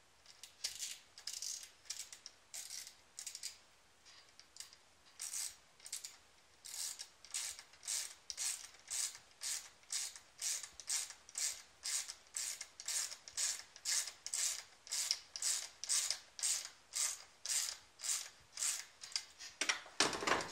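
A hand ratchet clicking in repeated back-and-forth strokes as a fastener is turned. The strokes are spaced out at first, then come steadily at about two a second. A louder knock comes near the end.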